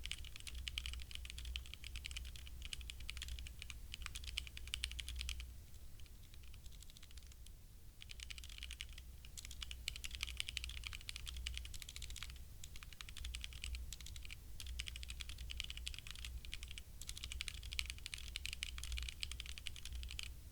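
Typing on a HyperX Alloy Origins Core mechanical keyboard with HyperX Red linear switches: a fast, continuous run of key clicks that pauses for about three seconds roughly a quarter of the way in, then resumes.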